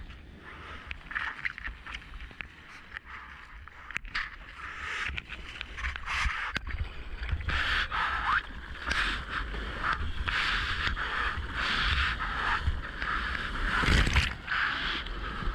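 Sea water splashing and sloshing around a whitewater kayak as it is paddled through small waves. Near the end a loud rush of breaking whitewater washes over the boat.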